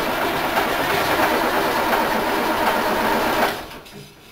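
1966 Diamond T semi truck's engine going, loud and steady, then stopping abruptly about three and a half seconds in.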